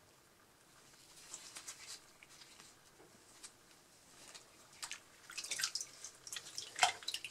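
Water dripping and splashing lightly in a basin as gloved hands lift and move a soaked banknote: scattered small drips and splashes starting about a second in, growing busier and loudest near the end.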